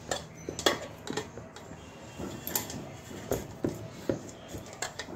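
Hands kneading soft paratha dough in a steel bowl, with irregular light knocks and clicks from the bowl and hand.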